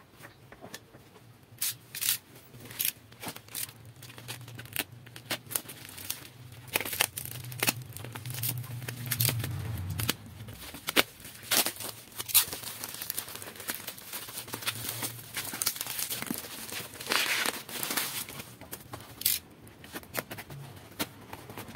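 Utility knife slitting the packing tape and plastic wrap on a small parcel, with tape tearing, wrapping crinkling and scattered clicks and scrapes as the package is handled. A longer tearing noise comes about two thirds of the way in.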